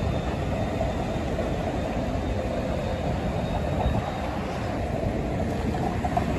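City street traffic at an intersection: cars and streetcars running, a steady rumble with no single event standing out.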